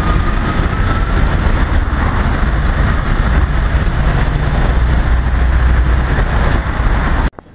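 Heavy road traffic: a loud, steady rumble of lorry, van and car engines with a deep bass, and a faint rising whine in the first second or so. It cuts off suddenly near the end.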